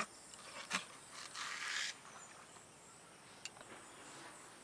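Faint sounds of a hilsa fish being cut on a boti blade: two sharp clicks in the first second, a short rasping slice about a second and a half in, and a light tick later.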